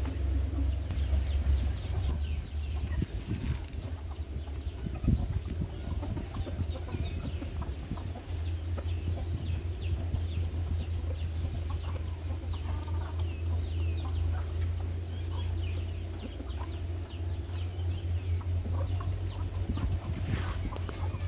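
A flock of young chickens clucking and chirping, many short high falling calls in quick succession, over a steady low rumble.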